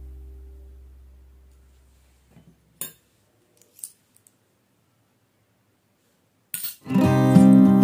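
Small stainless-steel toy utensils clinking lightly a few times as they are handled, the clearest clink about three seconds in. Music fades out at the start, and guitar music comes back in near the end.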